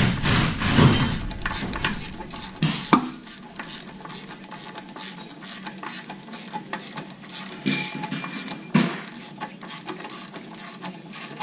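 Hand tools on bolts: a socket wrench clicking and metal clinking in scattered, irregular strikes, with one ringing metallic clink about eight seconds in.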